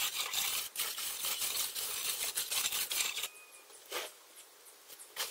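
Hand trowel scraping and smoothing wet sand-and-cement mix level across the top of a wooden concrete-block mould, a fast gritty rasping of quick strokes that stops about three seconds in. One more short scrape follows about a second later.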